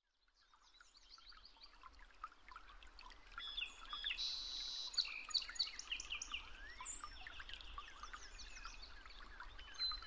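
A chorus of several songbirds singing together: overlapping quick chirps, trills and sweeping whistles. It fades in from silence about half a second in and grows louder over the first few seconds.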